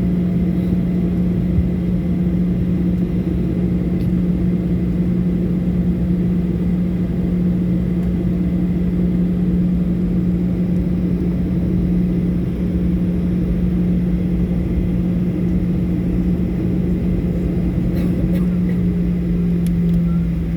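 Steady drone of a Boeing 737's engines and air systems heard from inside the cabin, with a strong hum that drops slightly in pitch near the end.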